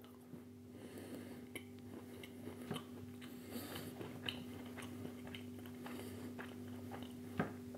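Faint chewing of a piece of Ferrero Rocher milk chocolate bar with a soft filling, scattered small mouth clicks over a steady low hum. One sharper click comes near the end.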